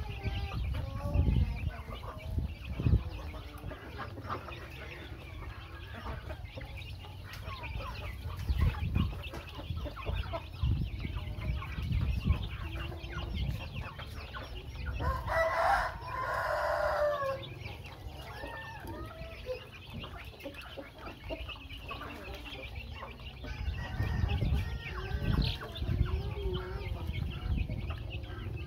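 A flock of young chickens peeping and clucking continuously while they feed. About halfway through, one longer, louder crow lasts about two seconds. A few dull low thumps come near the start and again near the end.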